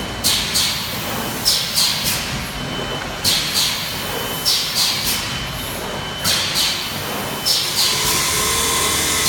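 BGS-240P plastic ampoule forming, filling and sealing machine running: short hisses of released air in pairs, the pairs repeating every second or two over a steady running noise.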